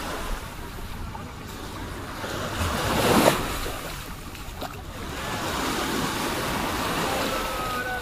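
Small waves washing up onto the sand at the water's edge, with one louder wash about three seconds in, over faint voices of beachgoers.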